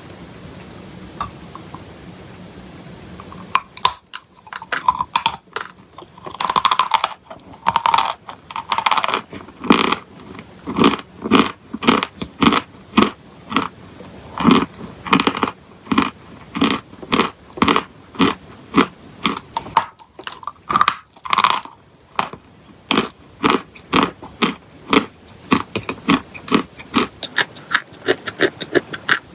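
Close-miked crunching of chalk and clay being bitten and chewed: a few faint clicks at first, then about four seconds in a steady run of sharp crunches, roughly two a second.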